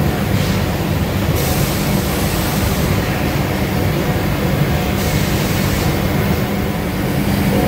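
Bottero Practica Plus 3300 CNC machining centre running: a steady low machine hum with a hiss on top that switches louder and softer abruptly several times.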